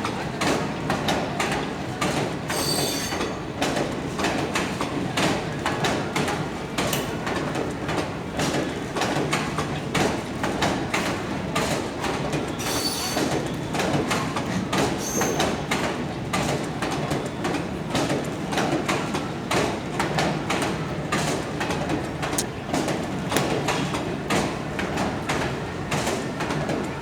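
Passenger express train rolling through, its wheels clattering steadily over rail joints. A high wheel squeal sounds briefly about three seconds in and again around thirteen and fifteen seconds.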